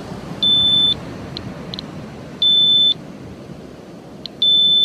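Geiger counter alarm beeping: three high-pitched beeps, each about half a second long and about two seconds apart, with a few short ticks between them. The alarm sounds when the count goes over three times background, a reading the owner takes as elevated radiation.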